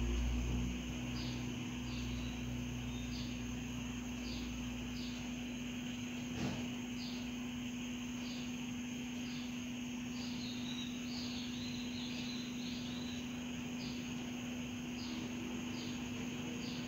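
Steady hiss of a lit gas burner screwed onto a small gas cylinder, over a low steady hum. High short chirps repeat about once a second throughout, and a single light tap sounds about six seconds in.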